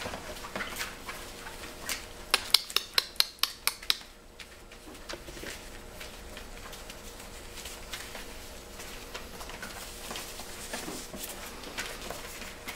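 Pointer puppies at play: claws clicking and paws pattering on a paper-covered floor, with a quick run of about a dozen sharp clicks about two seconds in.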